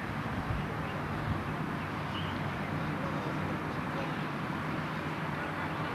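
Steady outdoor background noise: an even hiss over a low, steady hum.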